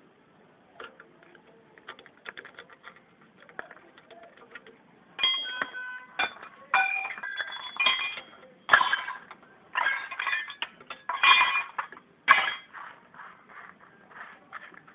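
Loose metal parts clinking and rattling against each other: light ticks and taps at first, then about five seconds in a run of loud, ringing metallic clinks lasting several seconds before settling back to lighter taps.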